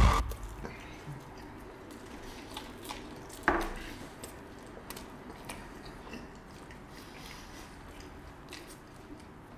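People chewing and biting into cheeseburgers while eating fast, with soft handling noises and small scattered clicks, and one louder knock about three and a half seconds in.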